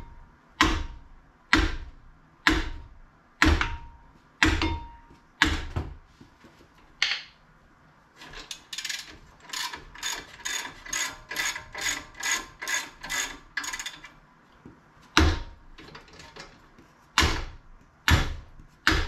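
A hammer striking a car's brake rotor on the hub, about one blow a second, some blows leaving a short metallic ring, to knock the rotor loose. In the middle comes a run of quicker, lighter clicks, about three a second, for some six seconds, and then three more hammer blows.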